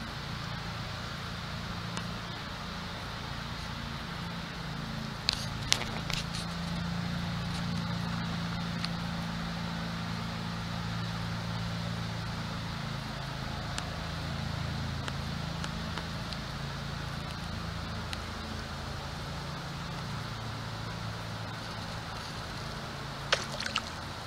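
A steady low hum, with a few sharp splashing clicks about five seconds in and again near the end as juvenile largemouth bass strike at minnows at the pond's surface.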